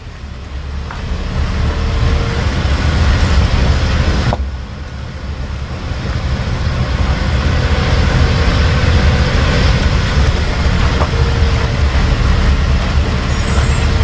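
Motor vehicle driving along an unpaved forest road: steady engine and road noise with a heavy low rumble. The noise drops abruptly for a moment about four seconds in, then builds again.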